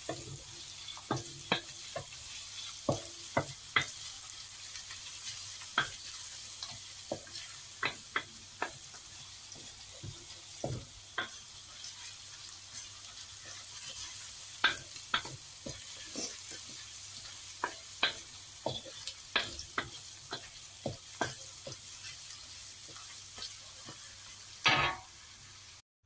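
Minced garlic and ginger sizzling in hot oil in a wok, with a steady hiss. A wooden spatula scrapes and knocks irregularly against the pan as the aromatics are sautéed, with one louder knock near the end.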